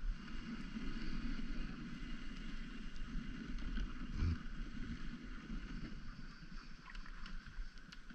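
Dog sled moving over snow: a steady rushing hiss from the runners, with wind on the microphone and a brief low bump about four seconds in.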